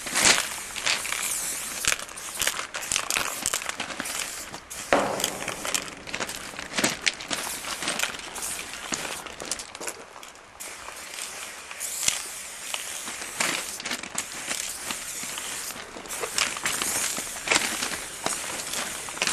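Crunching and rustling with many scattered crackles: feet shifting on gravel rail ballast and clothing and a backpack rustling close to the microphone.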